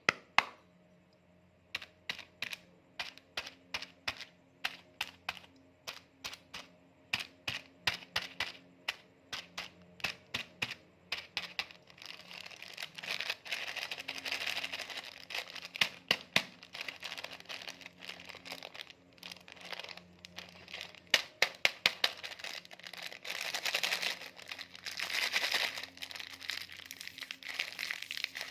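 Sharp clicks or taps, about two or three a second, for the first ten seconds or so. Then, from about twelve seconds in, plastic snack packets are handled and crinkle for the rest of the time.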